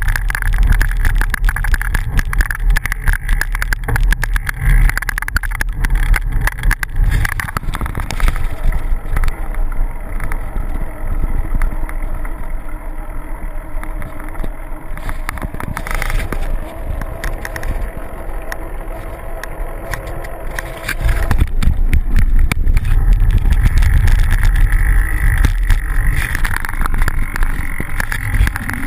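Wind buffeting a bicycle-mounted action camera's microphone, with the bicycle's tyres rolling on a dirt road. The rumble eases for several seconds in the middle through a bend, then comes back strongly.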